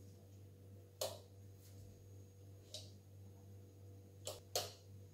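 Wall light-switch keys clicking four times: about a second in, near the middle, and a quick pair near the end, over a faint steady low hum.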